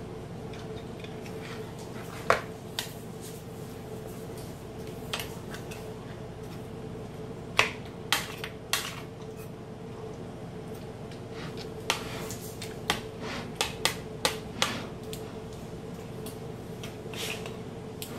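Metal spoon knocking and scraping against a plastic mixing bowl while stirring meat and sliced vegetables in marinade: scattered sharp clicks, bunched in the middle and later on, over a steady low hum.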